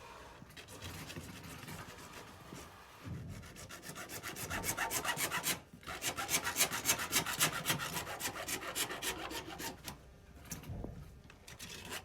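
A hand tool rasping back and forth in quick, even strokes, about six a second. It grows louder from about four seconds in, stops briefly near the middle, and eases off near the end.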